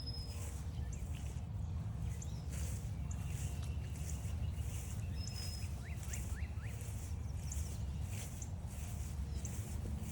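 Wild birds chirping and singing, with short high notes and quick downward-sweeping chirps. Underneath is a steady low rumble and a regular soft crunch of footsteps, about one step every half second or so.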